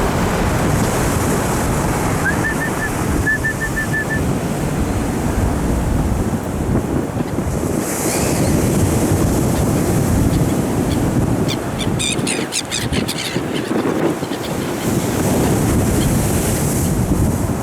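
Storm surf: heavy waves breaking and washing ashore, with wind buffeting the microphone; the wash swells about eight seconds in and again near the end. A few short high chirps a couple of seconds in, and a brief burst of rapid high chirping about twelve seconds in.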